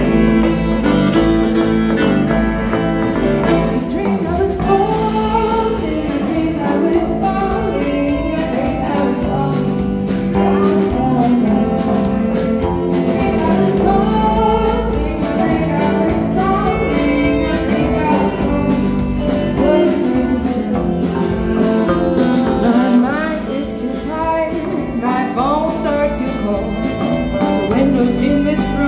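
A live band playing a country-style song, in a stretch with no lyrics picked up.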